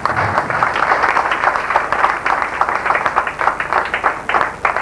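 Group applause: many people clapping together in a dense, steady patter.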